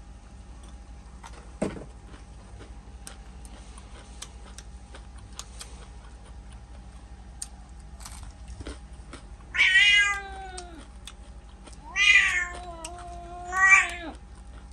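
Domestic cat meowing three times in the last five seconds, each a drawn-out call of about a second, the second one longest.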